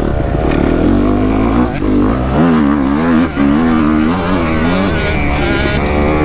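Kawasaki KX250F dirt bike's four-stroke single-cylinder engine revving up and down again and again as it is ridden on a motocross track, with a low wind rumble on the microphone.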